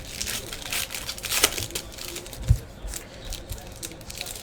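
Trading-card pack wrappers crinkling and rustling as they are handled and torn open, in short irregular crackles, with a dull thump about two and a half seconds in.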